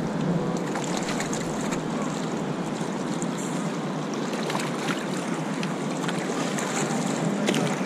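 Steady rush of river water around a whitewater kayak, with a few light splashes from paddle strokes.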